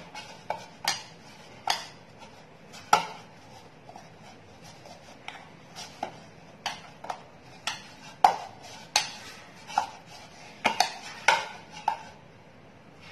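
Hands kneading play dough in a bowl: irregular sharp knocks and clinks against the bowl, about one or two a second, as the dough and fingers press and strike it.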